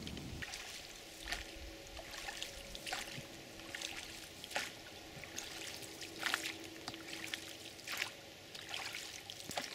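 Oars of an inflatable rowboat dipping and splashing in shallow water as it is rowed, one stroke about every second or two, with water trickling off the blades between strokes.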